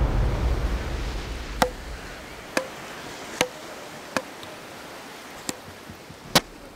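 Matkot rally: a rubber ball struck back and forth between wooden beach paddles, six sharp knocks about a second apart, each with a brief ring. A low rumbling whoosh fades out over the first second or so.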